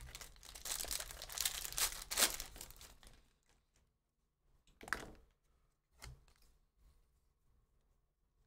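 Foil wrapper of a baseball card pack being torn open and crinkled, a crackly tearing for about three seconds. A couple of short handling sounds follow, then it goes quiet.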